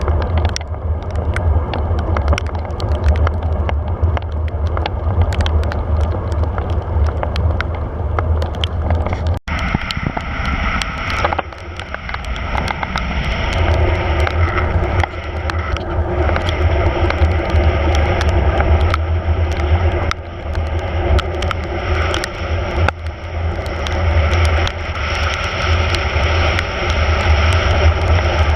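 Wind rumbling on the microphone over road noise from a moving bicycle. The sound cuts out briefly about nine seconds in, and a steady higher hiss joins the rumble after that.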